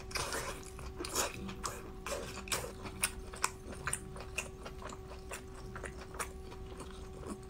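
Close-miked chewing of pan-fried pork large intestine: a string of small mouth clicks and smacks, with a faint steady hum underneath.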